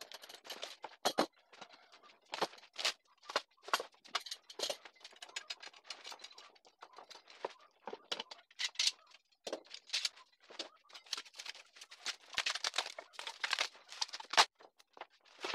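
Irregular knocks, clanks and short scrapes of hand work on a glued-up hardwood board: the screw press being loosened, metal bar clamps handled, and dried glue scraped off with a putty knife.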